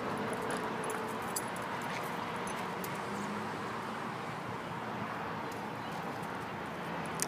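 Steady outdoor background noise, a constant hiss and hum, with a couple of faint clicks.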